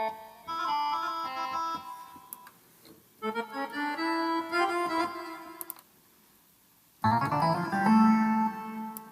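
Korg Pa50 arranger keyboard playing short demonstration phrases on its built-in sounds, three separate bursts of notes with brief pauses between them; the last one, from about seven seconds, is louder and fuller.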